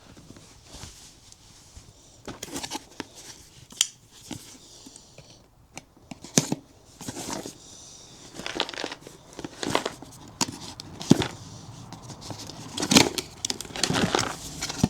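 Packaging of new inner tubes being torn open and crinkled by hand, with irregular crackles, rustles and sharp clicks.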